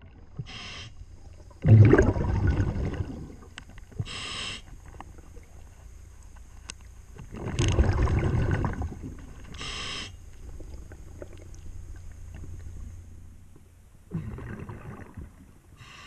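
Scuba diver breathing through a regulator underwater: short hissing inhalations alternating with longer, louder rushes of exhaled bubbles, about one breath every six seconds. Faint ticks of hand work on the saildrive sit underneath.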